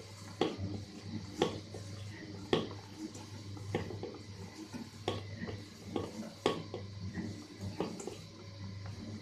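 A kitchen utensil knocking and clinking against a dish, about once a second, over a low steady hum.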